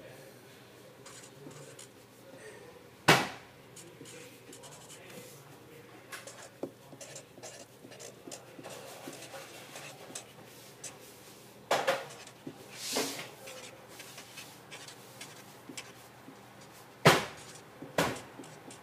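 Marker writing on paper: many short, faint scratchy strokes, broken by a few sharp knocks, the loudest about three seconds in and twice near the end.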